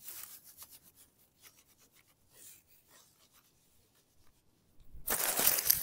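Long grass rubbed by hand on top of a lost microphone lying in it, heard through that microphone as a scratchy rustle. It is faint and patchy at first, then much louder for the last second as the rubbing comes right over the mic.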